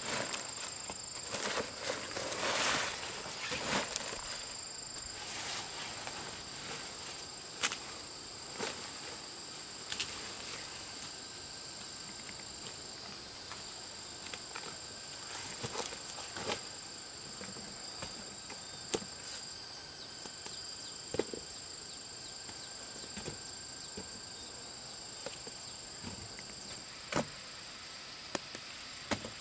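Insects trilling steadily at two high pitches. A burst of rustling comes about two seconds in, and sharp knocks and taps are scattered throughout.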